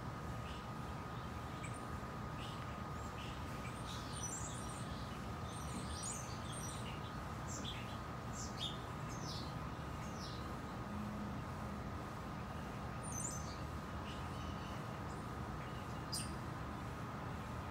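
Small birds chirping now and then: short, high, falling chirps scattered throughout, over a steady low background rumble and a faint steady tone.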